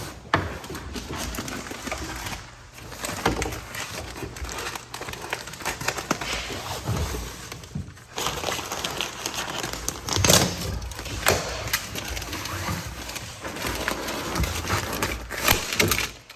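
Rustling, crinkling and crackling of paper-faced fiberglass insulation batts being handled and pushed into the wall cavities, with irregular small crackles and a few louder rustles.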